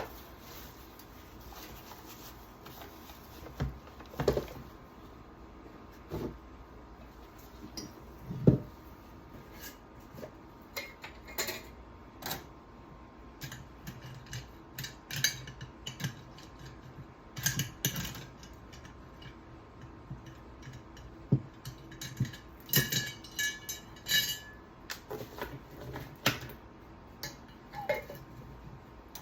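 Small metal chainsaw parts and tools being handled: scattered clinks and knocks of metal against metal and a container, with a short ringing metallic clatter about three-quarters of the way through.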